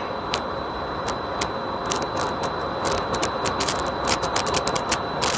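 Steady rushing noise with a thin, constant high whine and irregular crackling clicks throughout, as picked up by the built-in microphone of FPV goggles.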